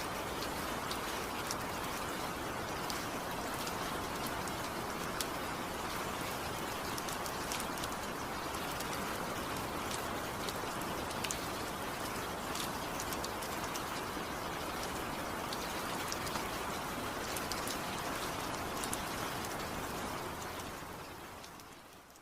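Heavy rain falling steadily, a dense even hiss with individual drops ticking sharply through it; it fades out near the end.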